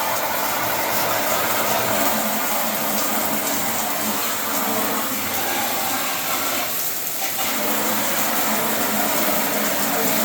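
Running water spraying in a steady rush, rinsing ink off a printer. There is a brief change in the spray about seven seconds in.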